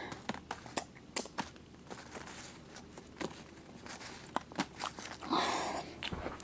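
Light clicks and taps of small plastic toy figures being handled and tapped together, with a short rustle about five seconds in.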